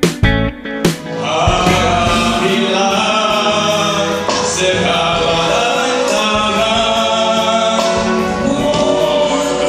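A few loud, sharp band hits in the first second, then a live band playing with a singer from about a second in.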